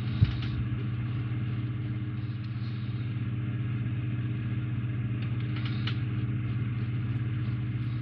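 Steady low hum, with one sharp click about a quarter second in and a few faint clicks later, as small screws and plastic model parts are handled.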